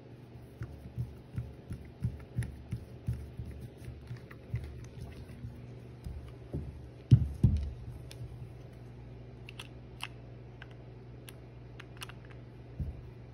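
Small clicks and light knocks of a flathead screwdriver working a revolver's grip screw and of the metal frame and wooden grip panels being handled, about two to three a second at first, with two louder knocks about seven seconds in and scattered sharp clicks afterwards. A steady low hum runs underneath.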